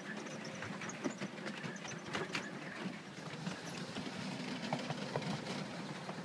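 7¼-inch gauge miniature steam railway train running along the track: a steady low rumble with the carriage wheels clicking and rattling irregularly on the rails.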